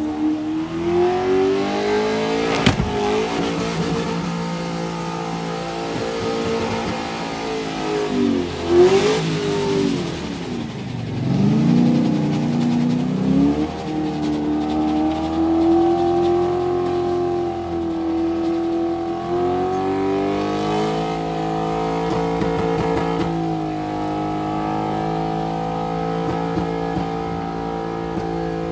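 Holden Commodore engine held at high revs during a burnout. About a third of the way in, the revs drop sharply twice and climb back, then hold fairly steady again.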